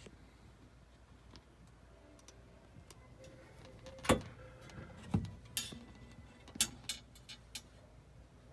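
A handful of irregular sharp clicks and knocks, as of objects being handled and set down, the loudest about four seconds in, over quiet room tone.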